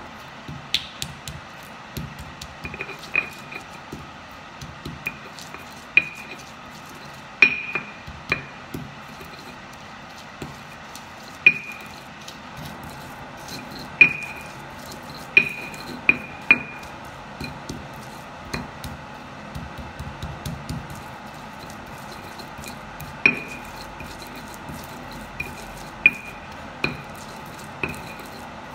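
Stone pestle (ulekan) pounding and grinding spices in a stone mortar (cobek). Irregular sharp stone-on-stone knocks, each ringing briefly, come between stretches of quieter crushing and scraping.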